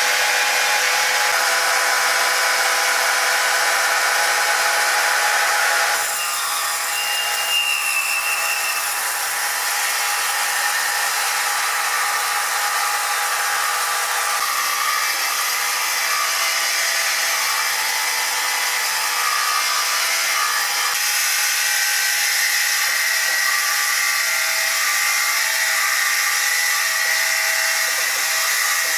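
Sawmill saw running and cutting through wood: a steady machine whine with several fixed high tones, changing abruptly a few times.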